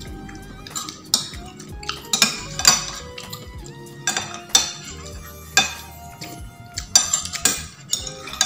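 Cutlery clinking and scraping against a plate while someone eats, about nine sharp clinks at uneven intervals.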